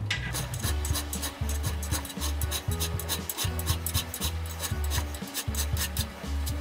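Steel hand file rasping across a notch in a railroad spike in quick repeated strokes, smoothing the cut and squaring its sides. Background music with a low bass line plays under it.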